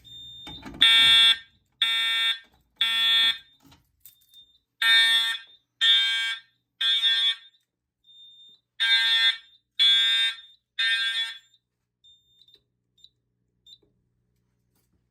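Fire alarm horns of a home collection system sounding the temporal-3 evacuation pattern: three rounds of three half-second blasts, each round separated by a pause, then stopping about twelve seconds in. A faint high tone hangs between the rounds.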